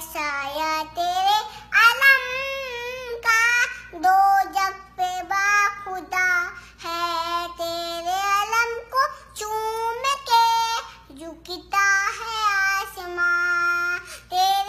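A young girl singing an Urdu devotional song to Abbas without accompaniment, in sung phrases with long held notes and short pauses for breath.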